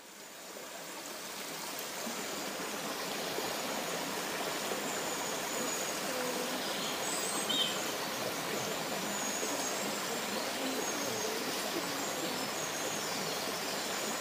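Shallow stony woodland stream trickling over rocks: a steady, even rush of water that fades in over the first couple of seconds. Faint bird calls sound above it now and then, one clearest about halfway through.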